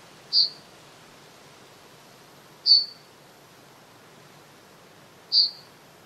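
Yellowhammer (Emberiza citrinella) giving three short, high single calls, each a brief note a couple of seconds apart.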